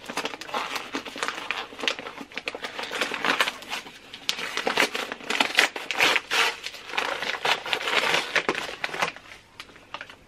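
White paper wrapping of a small parcel torn open and crumpled by hand: a dense run of rustles and crackles, busiest in the middle and easing off near the end.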